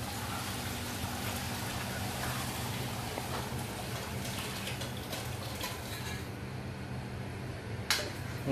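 Beef broth pouring in a steady stream from a large aluminium pot into a pot of rice, splashing as it fills, over a steady low hum. A short knock sounds near the end.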